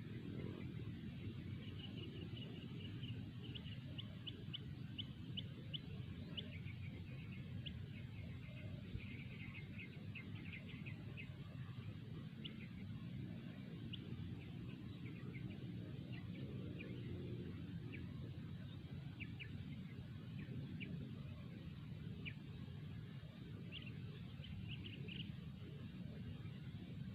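Small birds chirping in quick, short, high calls, busiest in the first half and again near the end, over a steady low rumble.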